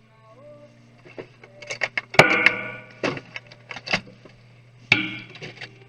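Sharp clicks and clattering knocks of a laptop and tools being handled for disassembly, the loudest about two seconds in and again near the end, a few with a short ring. A steady low hum runs underneath.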